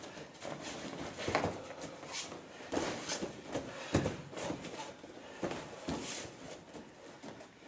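Bare feet shuffling and stepping on training mats, with the rustle of gi cloth as two partners grip and pull at each other. There is a scatter of short dull knocks, the loudest about four seconds in.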